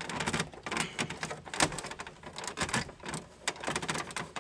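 Irregular clicks, knocks and rattles of plastic and metal as a car radio is pushed and pried out of a dashboard opening, its top tabs and metal retaining clips releasing.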